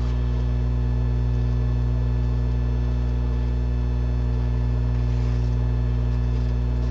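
Steady low electrical hum, mains hum carried on the recording, holding an even level with no change.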